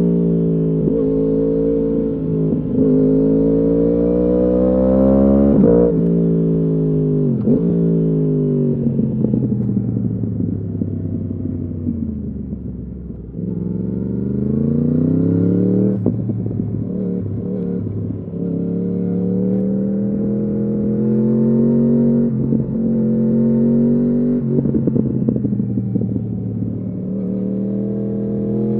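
2015 Yamaha R1's crossplane inline-four through an Akrapovič exhaust, heard from on the bike: the engine note climbs for about five seconds, drops sharply as the throttle closes, and winds down for several seconds. It then picks up again and holds a fairly steady note with a few brief dips.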